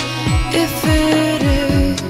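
Background music: an instrumental stretch of a pop song, with a steady drum beat under held chords and no singing.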